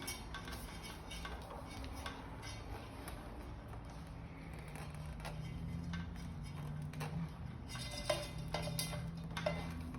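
Light clicks and taps of hands working a rubber cable grommet into its hole in an e-bike frame, with the cables rattling and the clicks coming thicker near the end. A faint low hum runs underneath.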